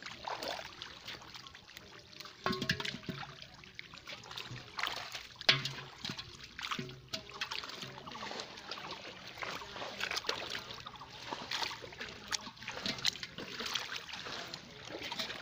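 Hands sloshing and splashing through shallow muddy pond water while feeling for fish, with irregular small splashes and trickling drips.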